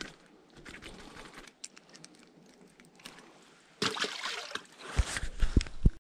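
Faint rustling and small clicks of hands baiting a fishing hook. From about four seconds in, loud rustling comes in, with several low thumps close to the microphone near the end: handling noise from the camera being moved.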